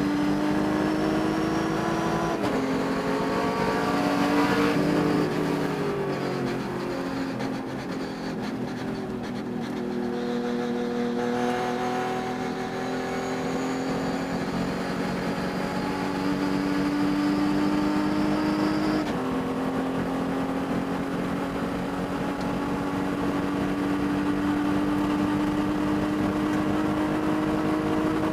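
Race engine under load, its pitch climbing steadily with revs, dropping in steps at gear changes or lifts about two seconds in and again near the end, and easing off briefly around a corner. The engine was running with a high-RPM miss throughout the race, which the owner says can be heard.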